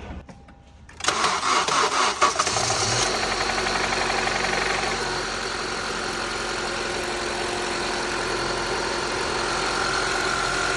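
Honda CR-V engine cranking for about a second and a half, catching and running at a fast idle, then settling into a steady idle. This is the engine starting and running again after a stretched timing chain and a faulty VTC actuator were replaced.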